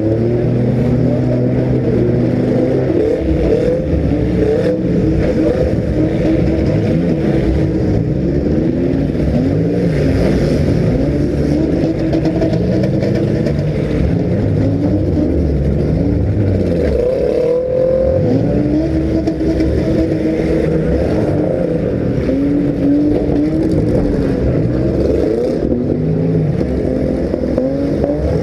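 Several compact-car engines revving up and down at once, their pitches rising and falling over one another without a break.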